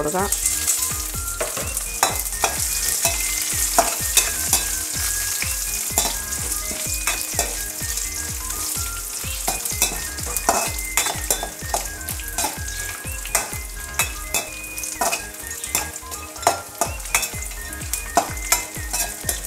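Nuts sizzling as they fry in ghee in a metal wok, stirred with a steel spoon that clicks and scrapes against the pan many times over a steady high sizzle.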